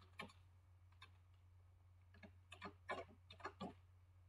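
Faint computer keyboard keystrokes: one near the start, then a quick run of about seven in the second half, over a low steady hum.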